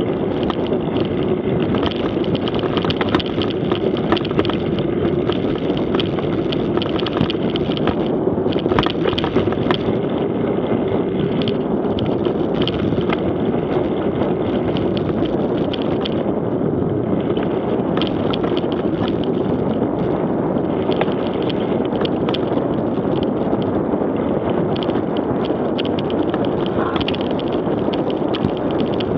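Mountain bike riding fast down a gravel track, heard through an action camera's microphone: steady wind noise, tyres crunching over loose stones, and frequent clicks and knocks from the bike over bumps.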